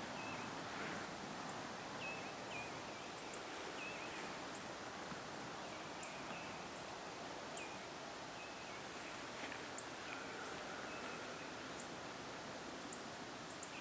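Quiet outdoor ambience: a steady faint hiss, with scattered short, high chirps of small birds.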